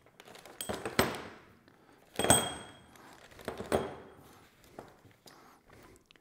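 Small metal parts clinking and a plastic zip bag rustling as disassembled rocker box parts are bagged on a workbench. There are three sharper clinks, the loudest near the middle ringing briefly like metal.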